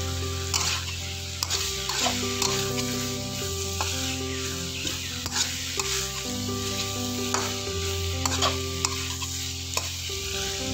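Okra and baby corn stir-frying in a hot wok: a steady sizzle with frequent scrapes and clacks of a metal spatula against the pan as it tosses the vegetables.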